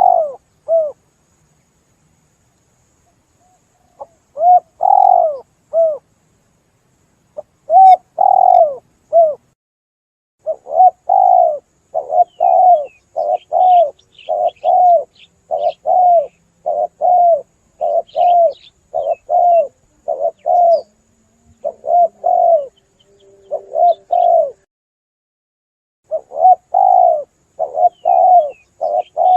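Spotted dove (tekukur) cooing over and over in runs of short coo notes broken by brief pauses, with a long, even run from about ten seconds in; this is a lure call for drawing spotted doves in. Faint chirps of small birds sound higher up.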